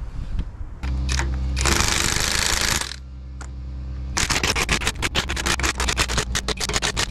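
From about four seconds in, a cordless impact wrench rattles in rapid hammering strokes, running in the bolts that hold a new swing bearing on a Hitachi EX75UR excavator. Before that there is a steady machine hum, with a loud rushing hiss for about a second.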